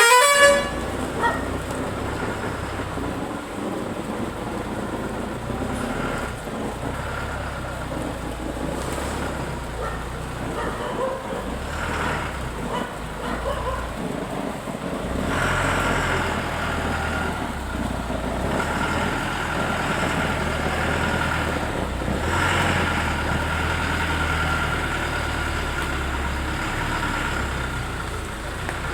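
A motor vehicle running steadily, a low rumble that grows louder about halfway through, with a faint steady whine above it. The last note of a multi-tone horn cuts off right at the start.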